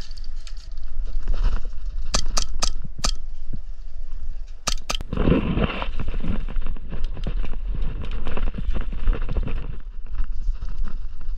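Airsoft gun fire: four sharp cracks in about a second, then two more about two seconds later. After them comes rustling and a run of quick footsteps and gear movement, over a steady low rumble on the microphone.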